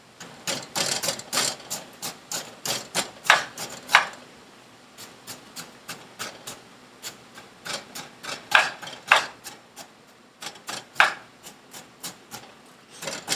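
Kitchen utensils clicking and knocking against cookware in quick, irregular strokes, with a few short scrapes. The strokes come in two busy stretches with a lull around the middle.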